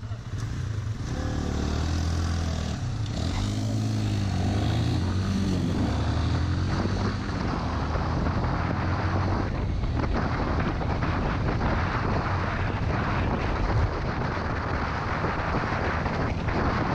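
Motorcycle engine pulling away from a standstill and accelerating through the gears, its pitch rising and dropping back with each shift over the first few seconds, then running steadily at speed under a constant rush of wind and road noise.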